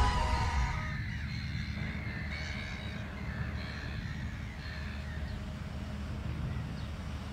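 A flock of seabirds calling, many short harsh calls overlapping, over a low steady rumble.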